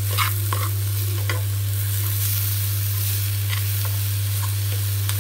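A metal spoon scraping and knocking against a kadai while stirring coarsely ground ivy gourd and green chilli chutney, which sizzles in oil with its water already cooked off. A steady low hum runs underneath.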